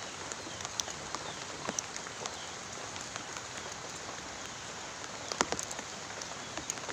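Steady rain falling, an even hiss with scattered single drops ticking louder, the strongest cluster of ticks about five and a half seconds in.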